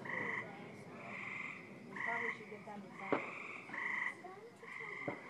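Frogs calling in short trills, about one a second, with two sharp distant fireworks bangs about three and five seconds in.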